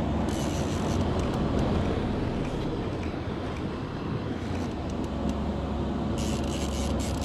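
Steady low rumble of a watercraft engine running on the water, with a hiss high up near the end.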